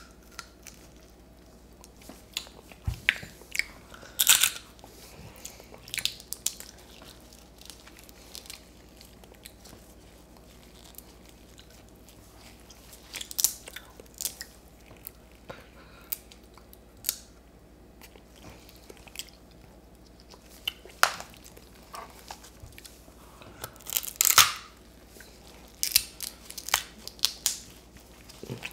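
Close-miked eating of stir-fried crab: chewing and biting, with scattered sharp cracks and crunches of crab shell. The loudest is a short run of crunches late on.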